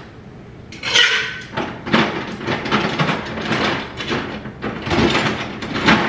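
Ice cubes from a refrigerator's dispenser dropping into a Stanley tumbler: an irregular run of clattering knocks starting about a second in.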